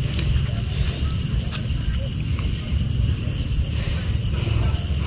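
Crickets chirping in short, pulsed trills repeated every second or so, over a steady low rumble.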